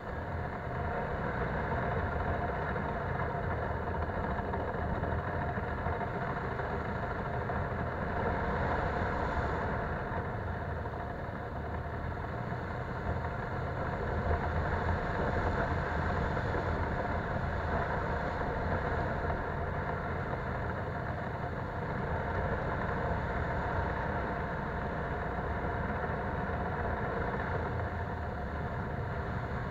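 Polaris Sportsman 570 ATV's single-cylinder engine running at a steady trail pace, mixed with tyre noise on a wet, muddy dirt trail.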